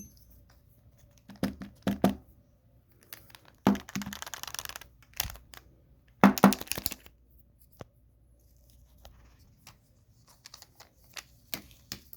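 Clicks and knocks of a SOPMOD buttstock's storage tube being handled, opened and emptied, with a crinkling rustle about four seconds in and the loudest clatter around six seconds in. A few light clicks come near the end.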